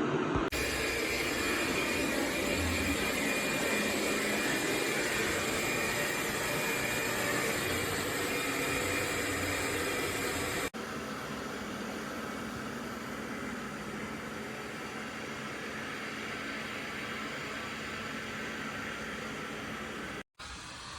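AIRROBO T20+ robot vacuum's motor and suction running as a steady whirring hiss, stepping abruptly to a different level about half a second in and again about eleven seconds in, with a brief dropout near the end.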